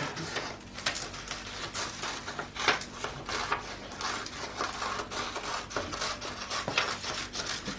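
Sheets of paper being handled and shuffled by hand: irregular rustles and light taps.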